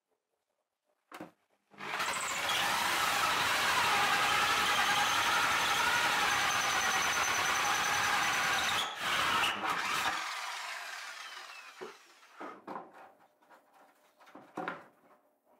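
Electric drill driving a hole saw through a wooden panel: a click, then about seven seconds of steady cutting with a high whine, a brief break, a short last burst, and the drill running down. A few light knocks follow near the end.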